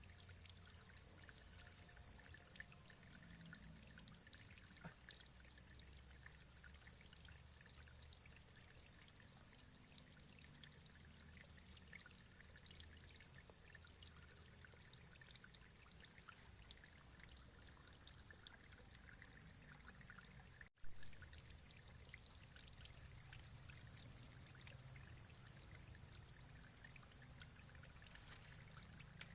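Faint, steady running water, a continuous pouring trickle with fine splashing crackle. The sound briefly cuts out with a click about two-thirds of the way through.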